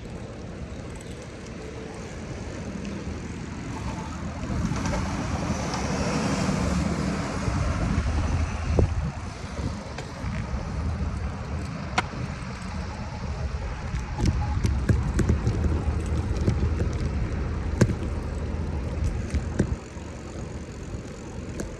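Street traffic along a city road with a steady low rumble, a vehicle passing loudest about four to eight seconds in, and a few sharp clicks later on.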